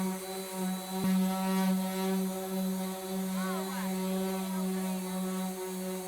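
Electric power sander running steadily against body filler on fiberglass, a constant pitched hum that dips briefly as it is pressed and moved, with a short click about a second in and a brief squeak around three and a half seconds in.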